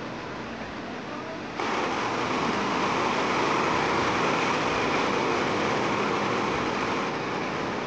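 Swollen, muddy river in flood rushing past: a steady noise of fast-flowing water. About a second and a half in it gets louder, with waves breaking against the near bank.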